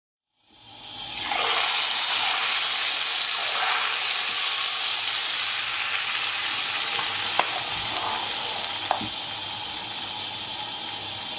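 Steady sizzling hiss from a cast-iron pot of yogurt soup topped with hot mint oil, fading in over the first second or so, while a metal ladle stirs it. A couple of sharp clicks, the ladle knocking the pot, come in the middle.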